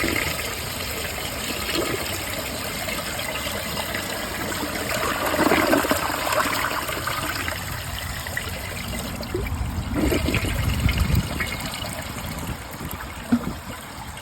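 Briggs Altima toilet flushing: water rushing through the bowl with louder gulping surges about five and ten seconds in, then the flow tapering off near the end. A powerful flush.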